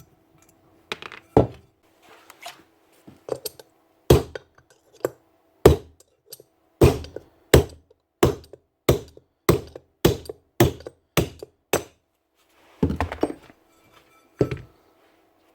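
Repeated hammer blows knocking the bearing out of a Bosch GEX150AC sander: a few scattered knocks, then a steady run of about nine strikes a little over half a second apart, then a last few near the end.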